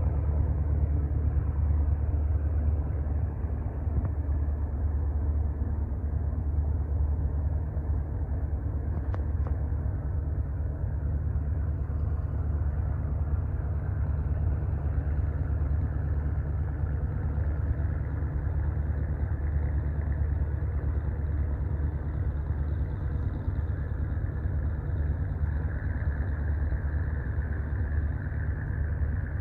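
A river cargo ship's engine running with a steady low hum.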